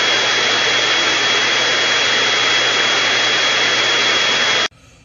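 Handheld electric blower running steadily, a loud rush of air with a high, steady whine over it, blowing clumps of shed fur across a tiled floor; it cuts off suddenly near the end.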